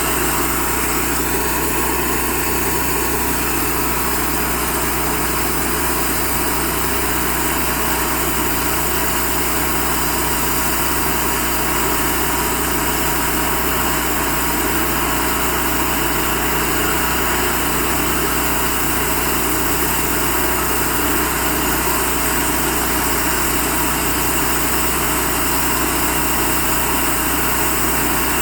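Cook's HD-3238 band sawmill running steadily under engine power, sawing through a 30-inch red oak log.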